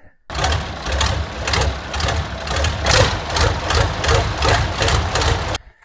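Massey Ferguson tractor's diesel engine idling with a steady, even pulsing beat. It cuts in abruptly at the start and cuts off abruptly near the end.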